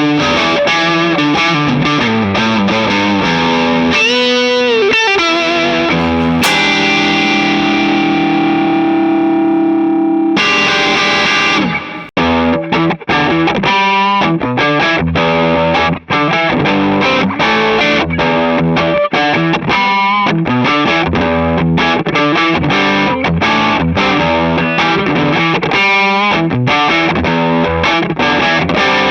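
Gibson ES-335 electric guitar played through distortion, rock and roll riffs in E minor. Bent, wavering notes come a few seconds in, then a chord is left ringing for about four seconds, then a choppy riff of short chords with brief stops.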